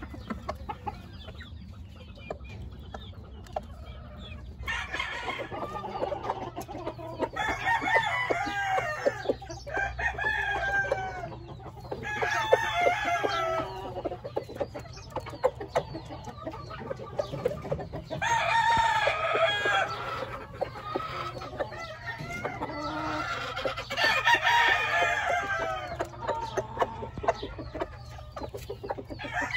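Gamefowl roosters crowing again and again, one long crow after another, with clucking and short ticks in between. The crowing starts about five seconds in.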